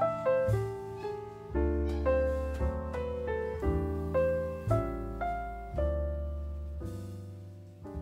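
Background piano music: a gentle melody of struck notes over sustained bass chords.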